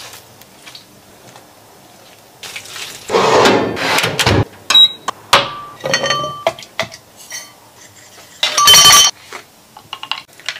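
Blueberries dropped into a stemmed drinking glass, clattering and clinking against it, with the glass ringing. There are two loud bursts of clatter, one a few seconds in and one in the latter half, with scattered clinks between.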